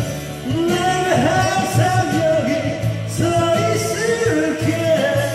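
A man singing a Korean rock ballad over a band backing track, between sung lines.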